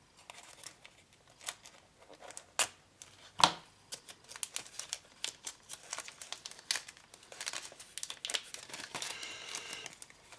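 Clear plastic decal-sheet bag crinkling and crackling as it is handled and the sheet is worked out of it, with a few louder sharp snaps, the loudest about three and a half seconds in.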